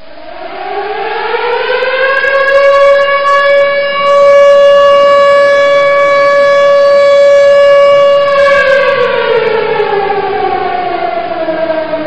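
A siren winding up slowly in pitch over the first two seconds, holding one loud steady tone, then winding slowly down from about eight and a half seconds in.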